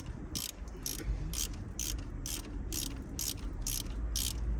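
Ratchet wrench clicking in steady, even strokes, about two a second, as a bolt is worked out during cylinder head removal on a GM 4.3-litre V6.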